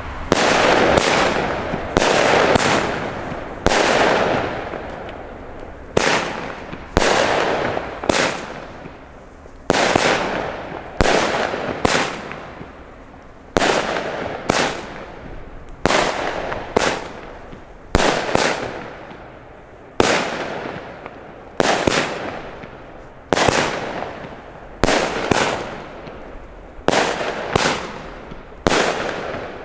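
Panda Firefox 19-shot firework cake firing shot after shot, about one every second or two. Each shot is a sharp bang followed by a fading tail as the shell bursts into stars.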